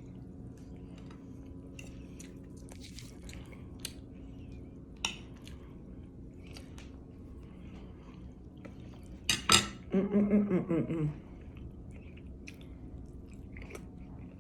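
A person chewing corned beef and cabbage, with small scattered clicks of cutlery against a plate. A little after nine seconds there is a sharp clatter, followed by a brief vocal sound.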